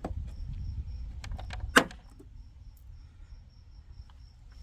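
A few light clicks, then one sharp snap a little under two seconds in, over a low rumble that fades after the snap.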